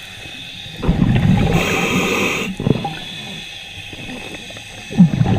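Scuba diver breathing through a regulator: a burst of exhaled bubbles rumbles and gurgles about a second in, with the regulator's hiss in the middle of it. After a quieter stretch, the next breath starts near the end.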